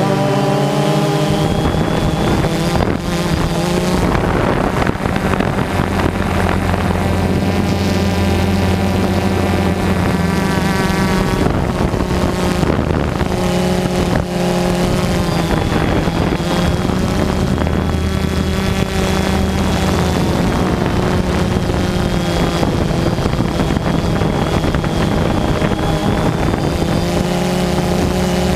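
Multirotor drone's electric motors and propellers buzzing steadily, recorded from the drone itself with wind noise on the microphone. The pitch shifts slightly now and then as the motors change speed.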